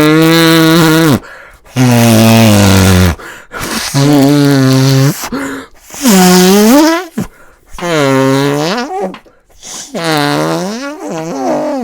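A series of about six loud fart sounds, each a second or so long with short gaps between. The first few hold a steady low pitch; the later ones bend up and down in pitch.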